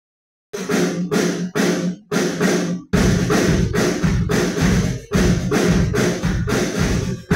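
Music with a steady beat of about two pulses a second, starting after half a second of silence; a deeper bass comes in about three seconds in.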